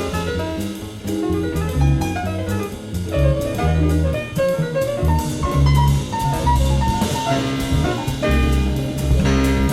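Small jazz group playing live, with drum kit and bass under a melody line, recorded off an FM radio broadcast onto cassette tape.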